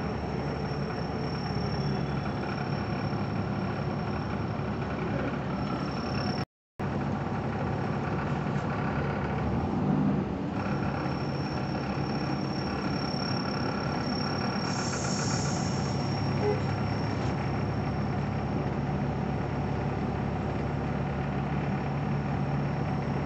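Steady hum of a road vehicle's engine and running noise heard from inside the vehicle, with a faint high whine. The sound cuts out completely for a moment about six and a half seconds in.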